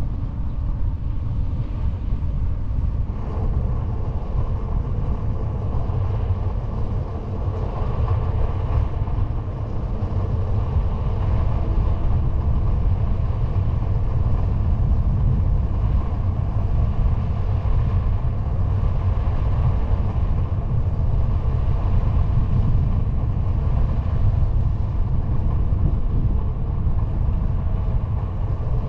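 Steady low rumble of wind buffeting the camera microphone on a moving bicycle, mixed with the hum of its knobby tyre rolling on asphalt.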